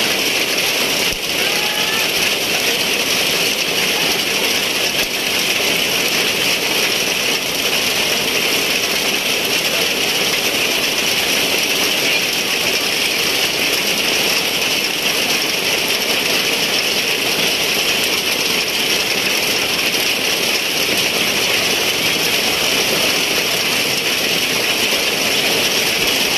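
Heavy rain falling in a steady downpour, with streams of water running off a roof edge.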